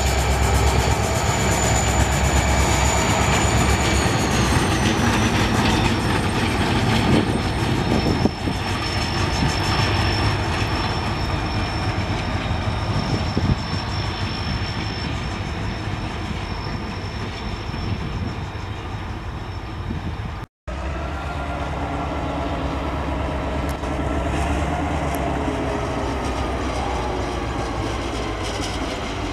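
EMD diesel-electric locomotives running past with a steady low engine drone and wheels clattering on the rails. Twice a high whine drops in pitch as a locomotive goes by: early on, and again after a sudden cut about two-thirds of the way through.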